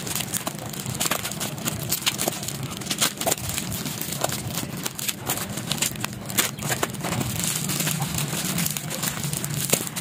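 Plastic bubble wrap crinkling and crackling as scissors cut through it and hands pull it apart, with many small sharp clicks, over a low steady hum.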